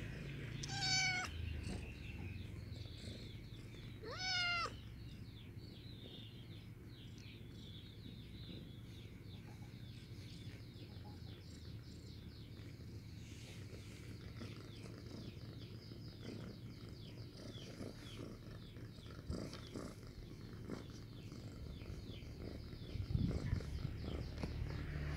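Cat meowing twice, two short calls about three seconds apart, the second sliding up in pitch and then down. A few soft knocks follow near the end.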